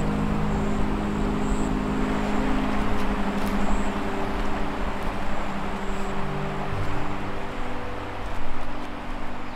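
Creek water rushing steadily, with low droning tones held underneath that shift slowly.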